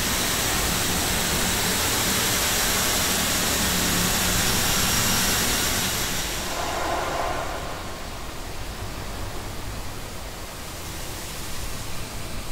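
An unidentified sound slowed down enormously with Paulstretch into a smooth wash of hiss with a faint low hum beneath. It holds steady, then fades down about six seconds in to a thinner hiss.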